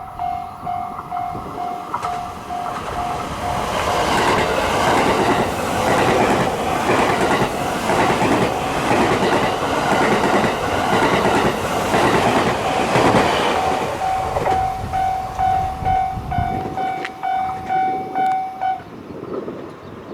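Level-crossing warning bell ringing in steady dings about twice a second, drowned out for several seconds as a train passes over the crossing with a loud rush and rapid wheel knocks on the rails, then heard again until it stops shortly before the end.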